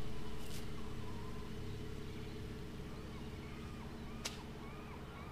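A steady low hum that fades gradually, with a run of short, arched chirps repeating about twice a second from about halfway through and a single sharp click near the end.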